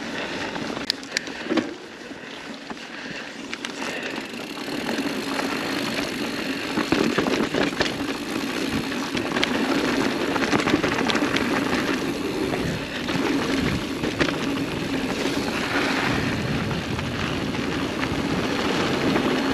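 Mountain bike rolling fast on hard-packed dirt singletrack: steady knobby-tyre noise with scattered clicks and rattles of the bike over bumps, growing louder from about four seconds in as speed picks up.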